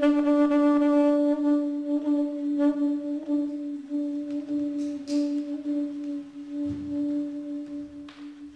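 A single long held note at one steady pitch, rich in overtones, slowly fading away near the end.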